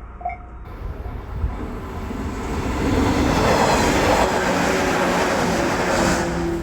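A JR San'yō Main Line train passing over a level crossing. The rumble and rattle of the wheels on the rails builds over the first few seconds, stays loud for several seconds, then starts to fall away near the end.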